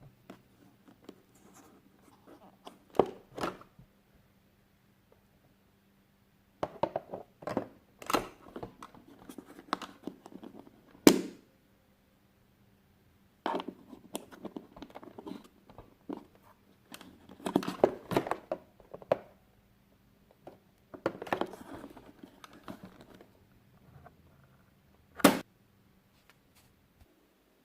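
Packaging being handled during unboxing: bursts of rustling, tearing and crinkling plastic and cardboard, with several sharp clicks or knocks, broken by short pauses.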